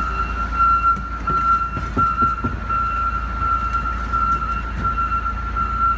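John Deere 524K wheel loader running with a high, nearly unbroken alarm tone over the low rumble of its diesel engine as it backs away: its reverse warning alarm. A few knocks sound about two seconds in.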